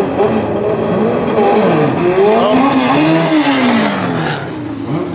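Two racing lawn mowers, a John Deere and a Honda, running hard down a drag strip. Their engine notes climb and fall in pitch and cross one another, then fade away about four and a half seconds in.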